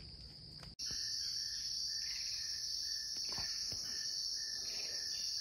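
Woodland insect chorus, mostly crickets: a steady high-pitched drone that jumps louder about a second in, with a lower pulsing call beside it and a few faint rustles.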